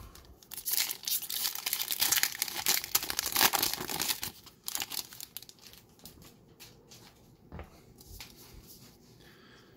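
Magic: The Gathering booster pack wrapper being torn open and crinkled for about four seconds, then a few faint scattered clicks.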